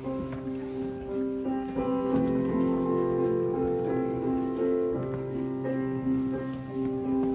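Slow instrumental music on a keyboard, with held chords changing every second or so.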